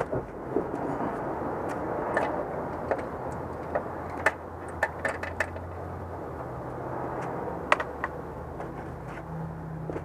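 Scattered light metallic clicks and taps from timing belt tensioner parts and tools being handled in the engine bay, over a steady background rumble; the sharpest click comes about three-quarters of the way through.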